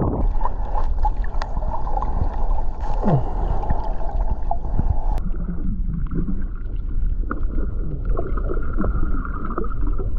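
Muffled water sloshing and bubbling, heard with the microphone at and then below the water surface. The sound changes about halfway through, when it is fully underwater.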